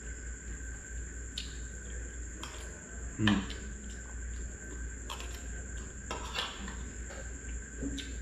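Metal spoon and fork clinking and scraping on a ceramic plate while eating, a handful of separate light clicks, over a steady faint hum.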